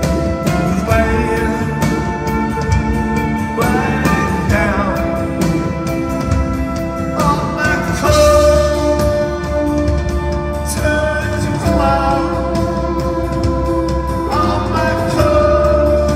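Live rock band playing loud: electric guitar, keyboards and drums, with a held, wavering sung vocal line.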